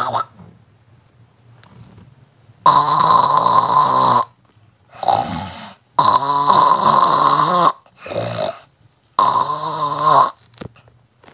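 A person snoring: three long, loud snores about three seconds apart, the first coming almost three seconds in, each of the first two followed by a shorter, fainter sound.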